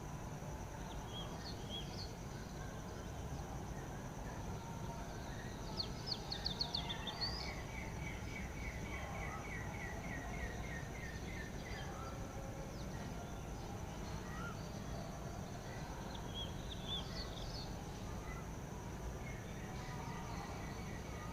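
Several wild birds calling over a steady high hum and a low rumble of outdoor noise. About six seconds in, a quick run of high chirps comes together with an even trill of repeated notes lasting a few seconds, and more scattered chirps follow later.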